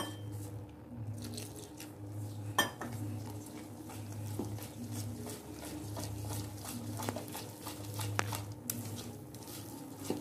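Gram-flour batter being mixed by hand in a stainless steel bowl: soft squishing strokes, with a few sharp clinks of hand or bangle against the metal. A low pulsing hum runs underneath.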